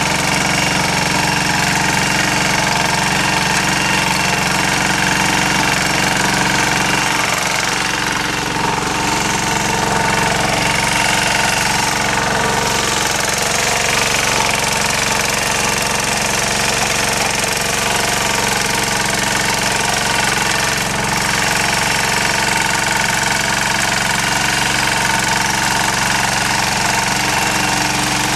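Yağmur YET-510 walk-behind rotary tiller running steadily under load as its tines dig through garden soil.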